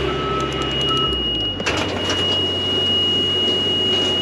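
Rough-terrain four-wheel-drive scissor lift driving with its engine running, its on-off motion-alarm beeps stopping about a second in while a steady high-pitched alarm tone sounds throughout. The engine note changes about a second in as the wheels dig into loose, soft gravel and the lift gets stuck.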